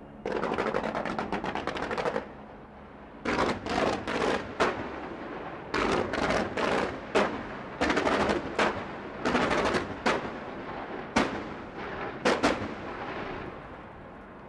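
Fireworks going off in rapid volleys of sharp bangs and crackle. One run lasts about two seconds at the start, then more than a dozen shorter clusters follow with brief gaps between them.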